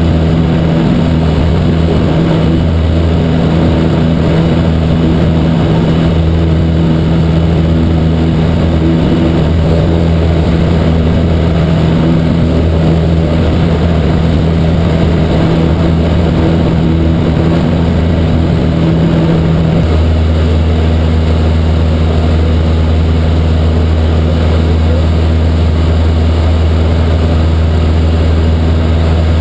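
Cessna 152's four-cylinder Lycoming O-235 engine and propeller running steadily in cruise, heard inside the cabin. The engine note changes slightly about twenty seconds in, as with a small power change.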